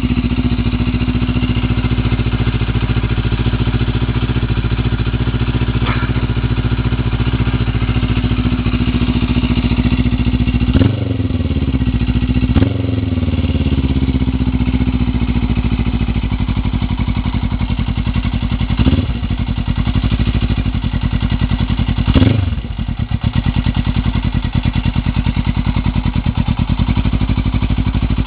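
Suzuki GS 500E's air-cooled parallel-twin engine idling through an open race silencer, with five short throttle blips, each falling back to idle; the blip near the end is the loudest.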